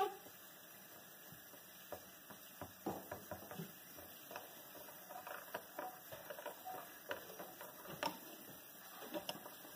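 Metal teaspoon stirring tea in a porcelain teacup: faint, irregular clinks and taps of the spoon against the cup.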